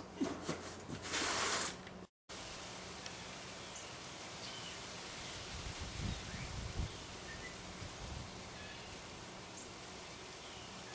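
Outdoor ambience: a steady hiss with faint, scattered short high chirps. A brief loud noise burst comes about a second in, the sound drops out entirely for a moment just after, and a few low thuds are heard near the middle.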